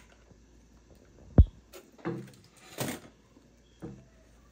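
A single sharp low thump about a second and a half in, followed by a few short rustles and faint murmured voice.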